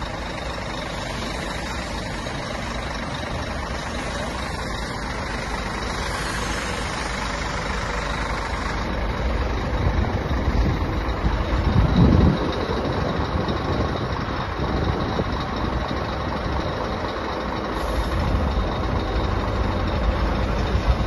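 Scania P380 tow truck's diesel engine running steadily, with a louder low rumble about twelve seconds in.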